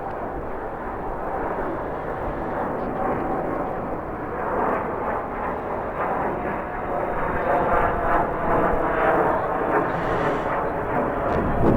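Jet airliner engines running, a steady rushing noise.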